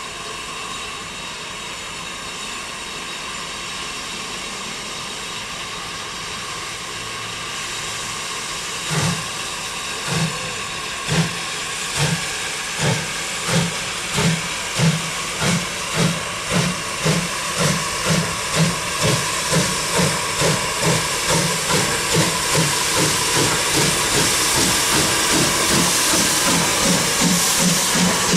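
Southern Railway Class S100 USA tank 0-6-0T steam locomotive working its train toward the listener: a steady hiss of steam from open cylinder drain cocks, then from about nine seconds in the chuff of its exhaust beats, quickening and growing louder as it draws close.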